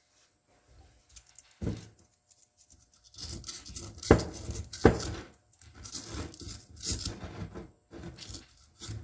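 Hands working on brake slave cylinder parts at a bench: a few sharp knocks of small metal parts set down or tapped, and stretches of rustling, scraping noise.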